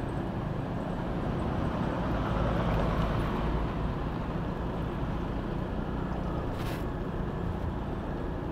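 Steady city traffic and road noise heard while travelling along a busy street. It swells slightly about two to three seconds in, and there is a brief hiss near the seven-second mark.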